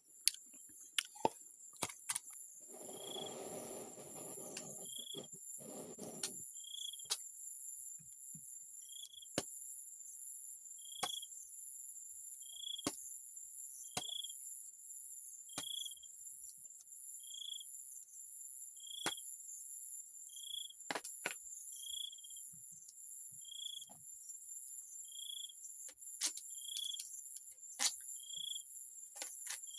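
Crickets chirring steadily at two high pitches, with a short high note repeating about every second and a half to two seconds and scattered sharp clicks. A brief rustle comes about three seconds in.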